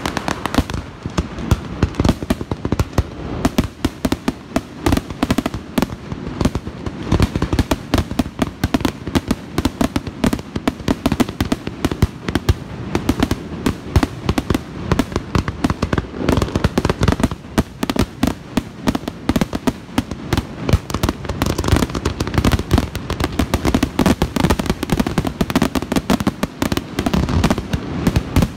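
Fireworks display: a dense, unbroken barrage of bangs and crackles from aerial shells bursting overhead.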